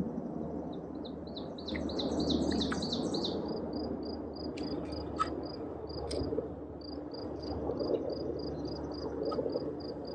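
Steady run of short, high chirps, about three a second, with a quick burst of faster chirping a couple of seconds in, over a low steady drone.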